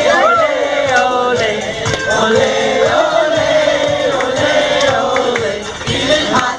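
Loud music with singing, played without a break.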